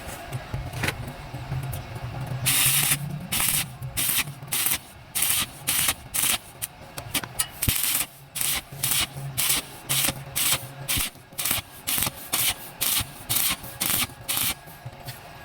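Welding arc crackling in short bursts, about two a second, over a steady low hum.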